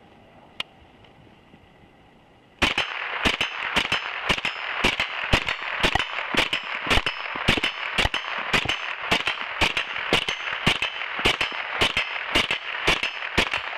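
SIG Sauer 522 semi-automatic .22 LR rifle firing rapid, steady shots, between two and three a second, starting about two and a half seconds in and going on without a pause. A single light click comes about half a second in, before the shooting starts.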